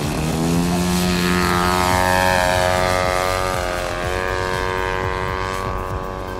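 RC Super Chipmunk model's EME 35cc petrol two-stroke engine and propeller opened up to full throttle for takeoff. It revs up at the start, then runs at a steady high pitch as the plane climbs away, with a brief dip in pitch about four seconds in.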